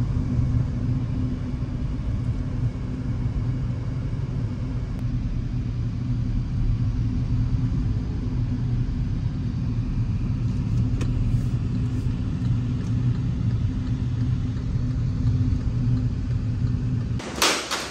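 Steady low rumble of engine and road noise heard from inside a Kia car's cabin while it drives, ending near the end in a brief sharp noise.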